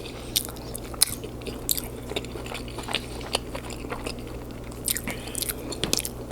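Close-miked chewing and lip smacking of someone eating lasagna: many short wet mouth clicks and smacks at an uneven pace, over a faint steady low hum.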